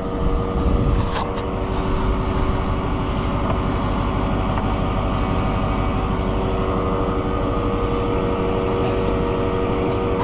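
Farm tractor engine running steadily, an even firing rhythm with a steady whine over it, while the tractor creeps forward to line its hitch up with a disc's pin hole.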